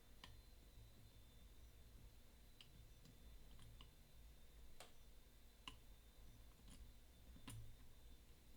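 Faint, irregular clicks, about nine of them, from a disc detainer pick turning the discs inside a Bell Catalyst 200 disc detainer U-lock as it is being picked.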